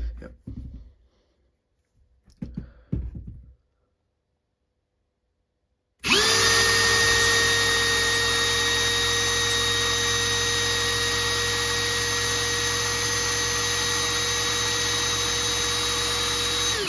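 A few short handling clicks, then a Parkside Performance PABSP 20-Li C2 cordless drill-driver with a brushless motor starts and runs free at full speed in its second gear (up to 2000 rpm). It gives a steady, loud high whine for about eleven seconds and stops abruptly.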